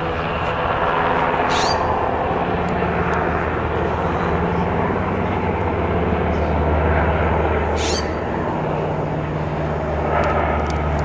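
Helicopter in flight: a steady low drone of rotor and engine under a broad rushing noise.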